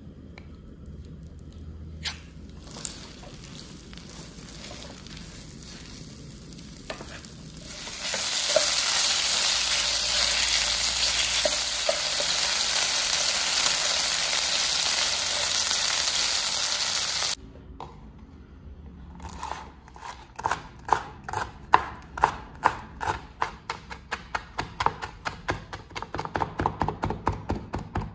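Chicken pieces frying in margarine in a nonstick wok: a steady sizzle from about eight seconds in, stirred with a wooden spatula, that cuts off suddenly partway through. Then a knife mincing garlic on a bamboo cutting board, about four quick chops a second.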